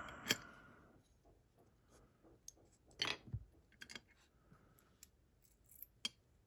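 Faint metallic clicks and light scrapes of lock parts being handled, as a plug follower is pushed into a picked pin-tumbler lock to gut it. They come as a handful of scattered clicks, the loudest about three seconds in.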